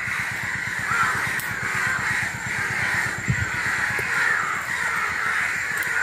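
Many crows cawing at once in a steady, overlapping chorus. A low rumble sits underneath, and there is a single dull knock about three seconds in.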